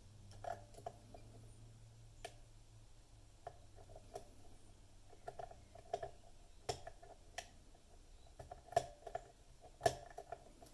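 Lock pick and tension wrench working a Lockwood pin-tumbler lock cylinder: irregular light metallic clicks as the pins are lifted and set, with the clicky feedback of serrated security pins; the two loudest clicks come near the end.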